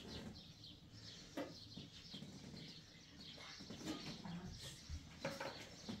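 Faint, scattered bird chirps with a sharp knock about one and a half seconds in and a few lighter clicks near the end.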